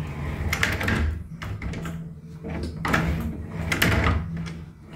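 Pocket door's wheeled hanger rolling along its aluminium overhead track as the door is slid to and fro, with a steady low rumble and a few louder scrapes and knocks as it reaches and hooks on the stop clip.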